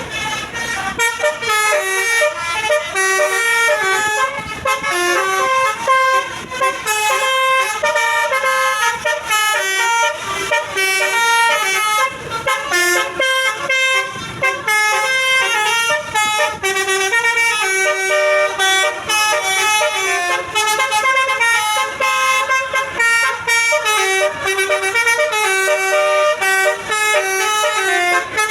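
Basuri bus's telolet horn, a set of tuned air horns, playing a fast melody of stepping notes without a break.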